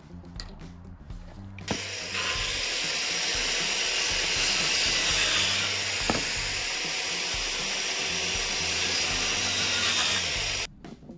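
A machine motor runs loudly and steadily with a thin high whine. It starts abruptly about two seconds in and cuts off abruptly near the end, with a single knock about six seconds in.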